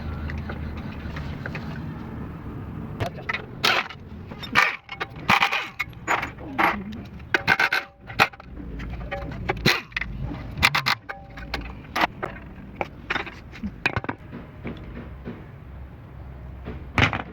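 Metal tools and parts being handled during a steering rack repair: a run of sharp clinks, knocks and taps, some ringing briefly. A low steady rumble runs under the first few seconds.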